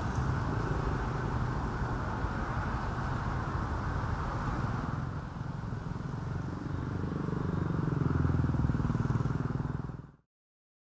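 Outdoor ambience with a steady low engine rumble from a motor vehicle, swelling louder near the end and then cutting off suddenly.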